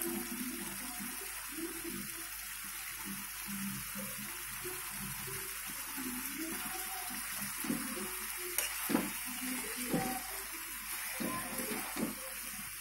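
Chicken pieces sizzling in an iron wok, a steady hiss. In the second half a steel spatula knocks and scrapes against the wok several times as the pieces are stirred.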